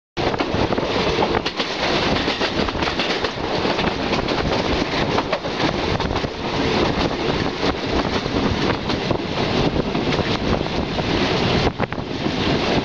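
A passenger train running at speed, heard from an open coach window: wind rushing over the microphone over the rumble and clatter of wheels on the track. There is a brief dip in the noise near the end.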